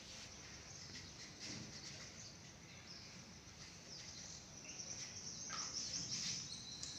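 Low background noise with faint high-pitched chirping that grows a little stronger in the second half.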